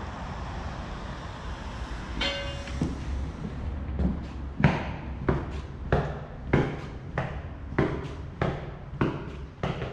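Footsteps of a person walking at an even pace in a concrete pedestrian underpass, about three steps every two seconds, starting about four seconds in after a stretch of steady outdoor wind and city noise. A short pitched tone sounds about two seconds in.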